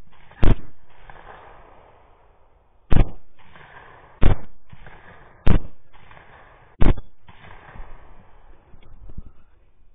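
Five rifle shots in quick succession, each trailing off. The first comes about half a second in; after a pause the other four follow from about three seconds in, roughly a second and a quarter apart.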